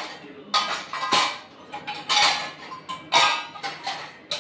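Metal dishes clinking and clattering against each other and the wire rack as they are taken from a stainless steel dish rack, several clatters about a second apart.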